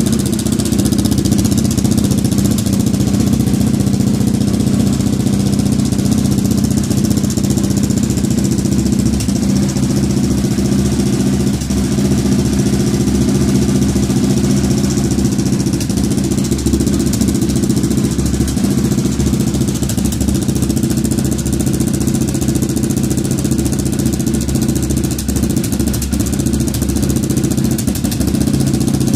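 KTM 690 SMC R's single-cylinder four-stroke engine idling steadily through a Mivv Suono aftermarket exhaust. The owner believes the sound reveals a problem but cannot name it.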